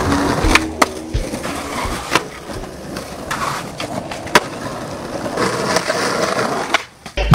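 Skateboard wheels rolling over rough concrete, with several sharp clacks as the board pops and lands.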